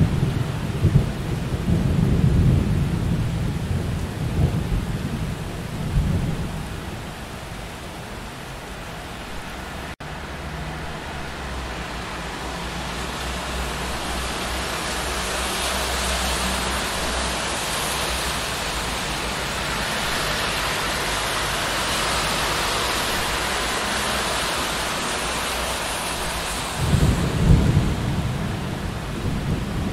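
Steady rain with deep rumbles of thunder in the first few seconds and again near the end; in between the rain hiss swells and grows louder through the middle.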